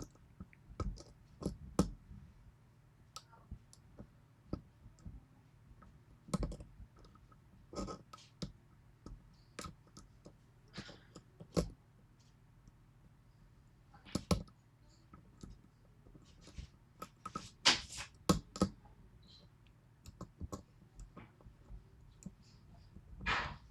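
Irregular small metallic clicks and scrapes of a lock pick and tension wrench working the pins of a 6-pin Yale pin-tumbler lock with spool driver pins, with a louder cluster of clicks about three-quarters of the way through and again near the end.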